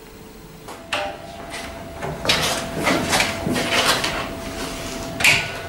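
Household handling noises: a click about a second in, then a run of knocks, rattles and scrapes like drawers and doors being worked, ending in a sharp knock near the end, over a faint steady hum.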